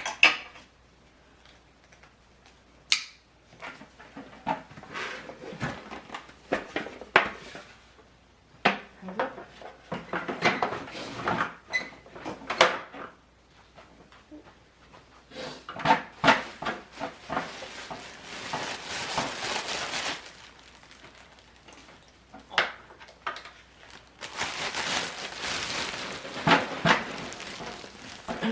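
Kitchen work sounds: irregular clinks and knocks of dishes, utensils and cupboards being handled, with two stretches of steady hiss, one around the middle and one near the end.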